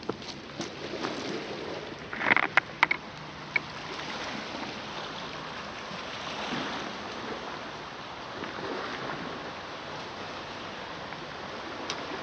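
Small waves lapping and splashing against a rocky lakeshore, with wind on the microphone. A few sharp clicks and knocks stand out about two to three seconds in.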